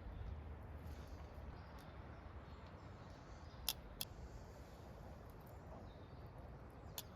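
Faint outdoor ambience: a steady low rumble with three short, sharp clicks, two close together around the middle and one near the end.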